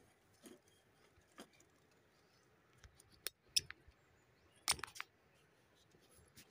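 A few sharp snaps and clicks scattered through otherwise quiet as weeds are pulled up by hand from the grass. The loudest snaps come a little under five seconds in.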